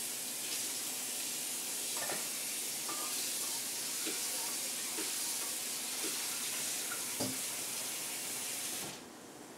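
Water running in a steady hiss that is shut off sharply near the end, with a few faint light knocks under it.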